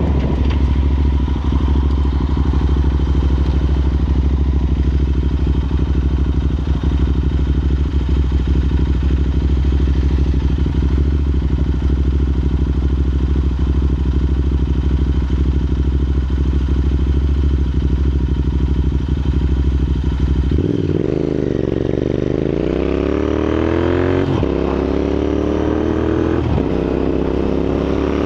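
Royal Enfield INT650's 648 cc parallel-twin engine through Red Rooster aftermarket exhausts, running at a steady pitch for about twenty seconds. The pitch then dips and climbs as the bike accelerates, with a brief break in the climb partway through.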